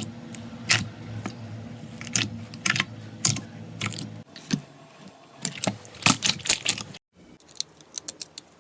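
Slime being squeezed and pressed by hand, giving irregular crisp clicks and small pops, with a brief break about seven seconds in before the clicking resumes.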